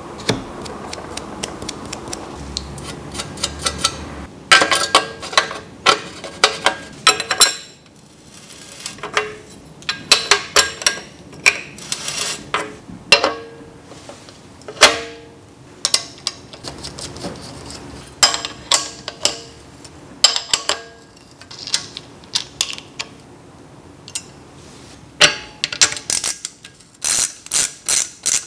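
Hand tools and metal bicycle parts clicking and clinking during assembly of the bottom bracket, crankset and pedal: clusters of sharp metallic taps and clicks, some with a short ring, starting about four seconds in.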